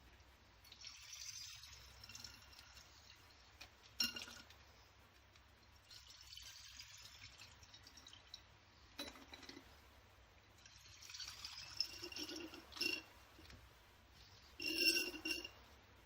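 Water being poured through the fill port into an Alphacool Cape Coolplex 250 mm watercooling reservoir, in three short pours, with a few sharp clinks between them.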